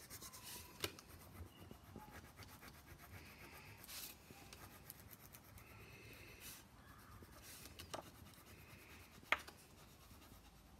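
Crayon being rubbed over a paper plate to colour it in, faint, with a few clicks, the loudest about nine seconds in.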